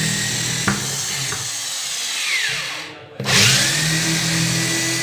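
Small handheld electric drill, fitted with a homemade bit made from a hammered-flat 3-inch nail, boring a handle hole through a glossy laminate cabinet panel. The motor winds down and stops about two and a half seconds in, then spins up again with a rising whine and keeps drilling.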